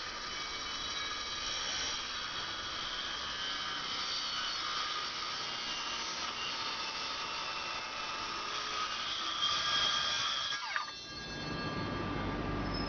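Circular saw running with a steady high whine as it cuts through wood. About eleven seconds in the trigger is released and the blade spins down with a falling whine.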